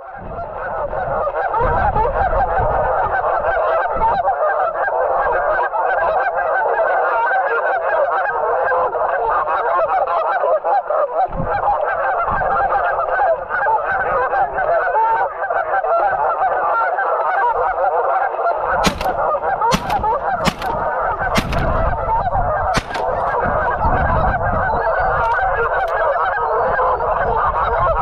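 A flock of Canada geese honking in a dense, unbroken chorus. About two-thirds of the way through, five sharp cracks come in quick succession over the calling.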